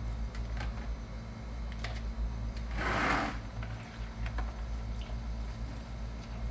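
Hand scrubbing of a cloth car seat with a brush: faint scratchy strokes over a steady low hum, with a short hiss about three seconds in.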